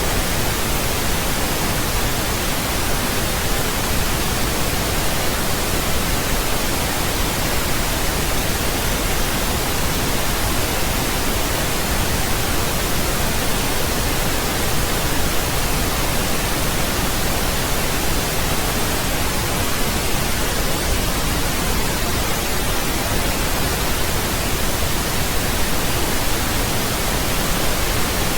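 Steady synthetic pink noise: an even, unchanging hiss across all pitches, fuller in the lows than white noise.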